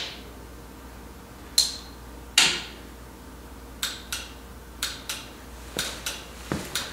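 Two sharp clicks of the dash toggle switches being flipped, then a run of lighter clicks in pairs, about one pair every three-quarters of a second, as the turn-signal flasher and its relays switch the lights on and off.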